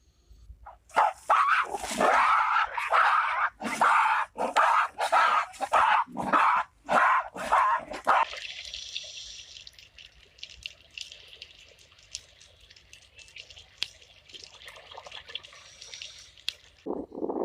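A dog barking repeatedly, about a dozen sharp barks in quick succession. Then a fainter hiss with scattered small ticks and drips.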